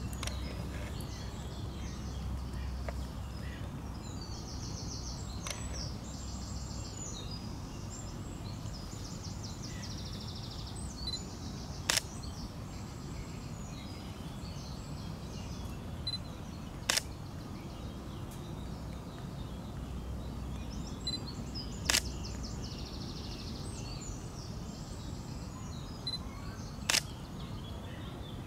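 Small birds singing over a steady low rumble, cut by sharp camera-shutter clicks about every five seconds as trophy photos of a common carp are taken.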